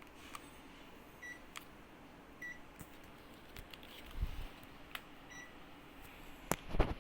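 Three short, high electronic beeps from a Panasonic mini split air conditioner's indoor unit, about a second, two and a half seconds and five seconds in, the kind it gives when it takes a remote-control command. Light clicks and knocks fall between the beeps, with a louder thump near the end.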